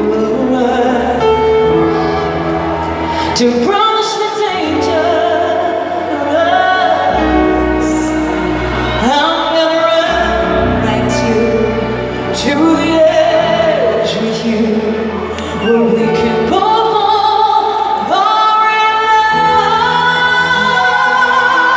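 A female singer singing a pop ballad live over instrumental accompaniment, with long held, sliding notes, recorded from within the arena audience.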